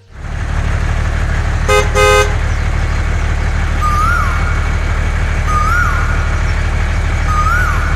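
A vehicle engine starts up at the beginning and keeps running with a steady low rumble. About two seconds in, a horn gives two short toots. After that, a short rising-and-falling chirp repeats three times at even intervals.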